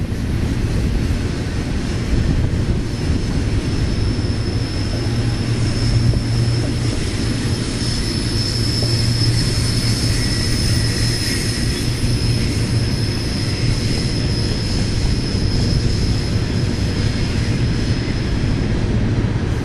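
Double-stack container cars of a Union Pacific freight train rolling past on a curve: a steady rumble of wheels on rail, with a thin high squeal from the wheel flanges starting about three seconds in and fading near the end.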